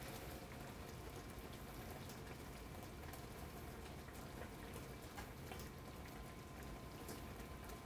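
Thick blueberry sauce simmering faintly in a frying pan: a soft, even bubbling with a few faint ticks.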